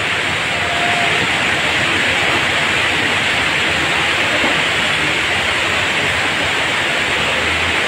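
Steady, loud rush of water: floodwater running fast through a street during heavy rain.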